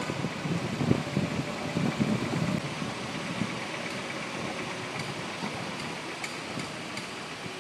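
Volvo 240 rolling slowly through a turn with its engine running, giving a few sharp clicks from the front end, echoing off the walls of a parking garage. A low, pulsing rumble is louder in the first two seconds or so, then settles.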